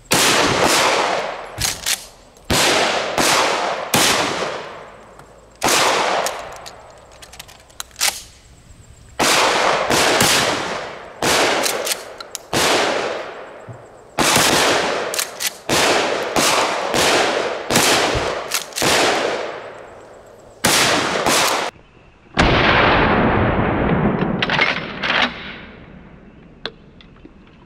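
Remington 870 12-gauge pump-action shotgun firing a long series of shots in quick strings, often less than a second apart, each shot followed by a fading echo. Faint clicks of the pump being worked come between some shots.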